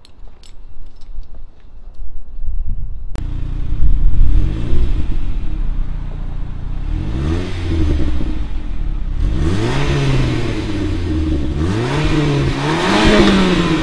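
Saab 9-5 Aero's turbocharged 2.3-litre four-cylinder engine, fresh ignition cassette and spark plugs fitted, cutting in suddenly about three seconds in and then running with the revs rising and falling several times.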